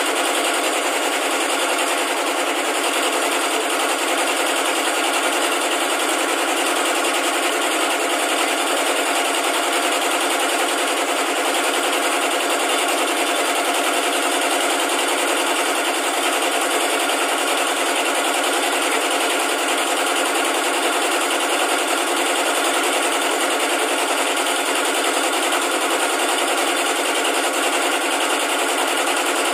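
Factory machinery running steadily with a fast, even mechanical clatter that never lets up.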